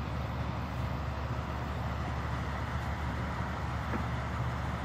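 A steady, low engine hum at an unchanging speed.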